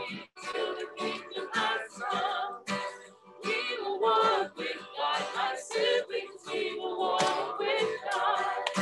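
A hymn sung to acoustic guitar accompaniment, with phrases broken by short pauses.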